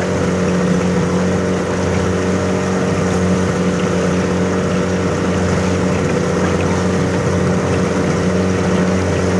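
Dinghy outboard motor running steadily while under way, a constant engine drone over a steady hiss.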